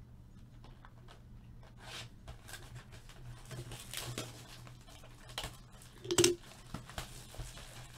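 Plastic wrap and packaging of a trading-card hobby box being torn and handled: scattered light rustles and crackles, with one louder snap about six seconds in.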